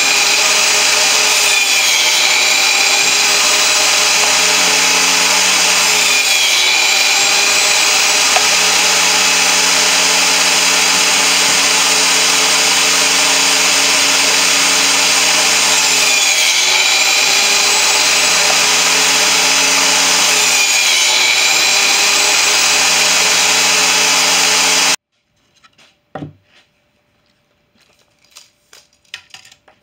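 Table saw running steadily, its pitch dipping briefly about four times as the blade cuts through a board. It cuts off suddenly near the end, and a few faint taps and clicks follow.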